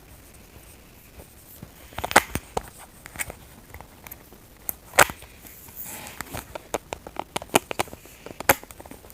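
Snack packaging being handled: irregular sharp clicks and crinkles, the loudest about two, five and eight and a half seconds in, with a quicker run of them between six and eight seconds.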